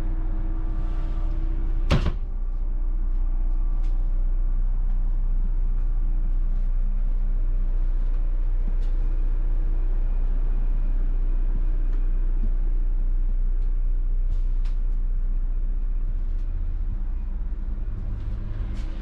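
Steady drone of a Volvo B11R Caetano Levante coach on the move, heard from inside the passenger cabin. A single sharp knock comes about two seconds in, and faint ticks and rattles follow.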